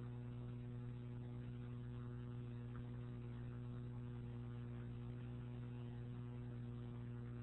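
Steady low electrical mains hum with faint hiss, unchanging throughout: electrical interference picked up in the microphone's audio chain.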